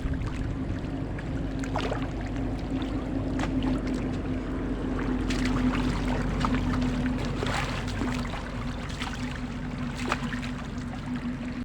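Small engine running steadily at a constant pitch, with scattered light clicks over it.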